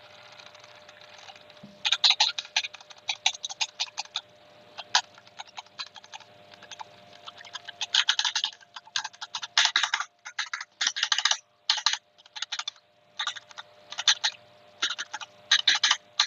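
Typing on a Vortex Race 3 75% mechanical keyboard with Cherry MX Brown switches in an aluminium case: rapid key clicks in bursts with short pauses, starting about two seconds in.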